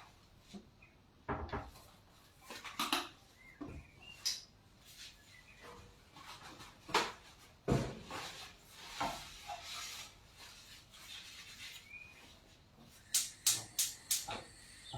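Irregular kitchen handling noises: scattered knocks and clatters of dishes and utensils, with a quick run of four sharp clicks near the end.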